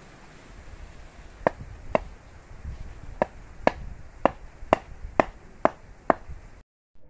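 A brick striking the top of a bamboo stake to drive it into the ground: nine sharp knocks, two, then a short pause, then seven more at about two a second.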